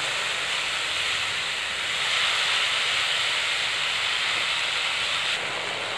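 Mushrooms, green peas and chili powder sizzling as they fry in oil and ghee in a kadai: a steady hiss that shifts slightly in tone near the end.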